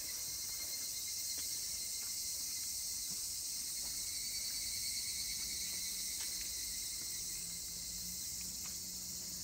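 A steady, high-pitched insect chorus that holds at an even level.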